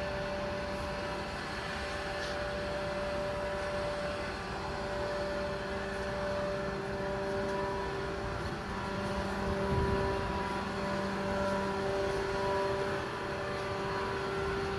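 Cargo ship's engine running steadily underway: a continuous drone with a few held tones over a low rumble.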